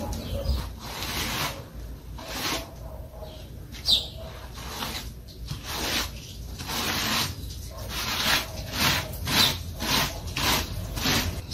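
A small straightedge scraping and rubbing over fresh, wet cement mortar on a concrete column in repeated strokes: the final smoothing pass of the render. The strokes are spaced out at first and come about twice a second in the second half.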